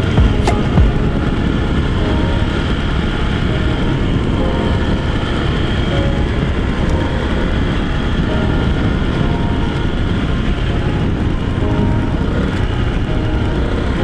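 Honda PCX125 scooter under way: its single-cylinder four-stroke engine running steadily beneath a loud, even rush of wind and road noise at a handlebar-mounted camera, with a couple of low thumps just after the start.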